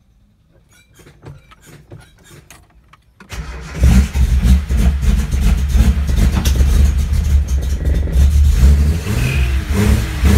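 Faint ticking while the fuel system primes, then a Nissan L28 2.8-litre straight-six on triple Weber carburetors fires up about three seconds in and runs loud and uneven on a cold start. It is blipped up and down several times near the end, heard from inside the cabin.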